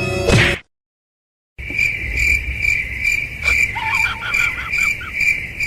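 A rising whine cuts off abruptly, and after a second of silence a steady, high, cricket-like chirping begins, pulsing about twice a second. Brief squeaky chirps join it in the middle.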